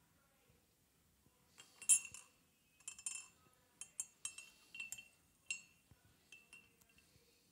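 Metal teaspoon clinking against a ceramic tea cup: a series of irregular light ringing clinks, the loudest about two seconds in, growing fainter near the end.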